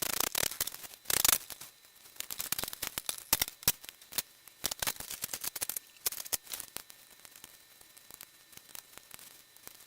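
Plastic casing of a small portable DVD player being pried and snapped apart by hand: a loud crack just after a second in, then scattered light clicks and rattles as the parts are worked loose.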